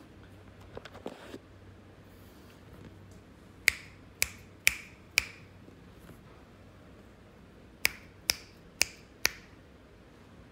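Fingers snapping near a deaf kitten's head as a hearing test: two sets of four sharp snaps, each at about two a second, a couple of seconds apart.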